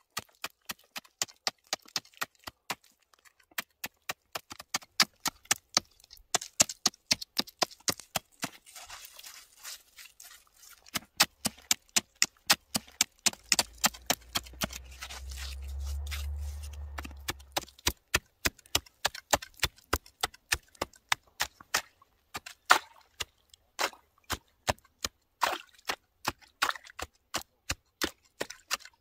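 Large fixed-blade survival knife stabbed point-first into lake ice over and over, chipping out a fishing hole. The sharp strikes come in a steady run of about two to three a second, with a few short pauses.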